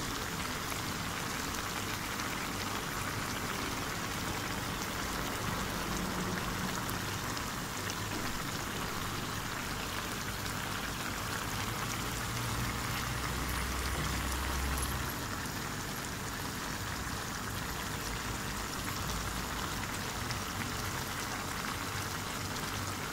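Catfish and cauliflower curry simmering in a pan, its gravy bubbling with a steady, fine crackle of small bubbles.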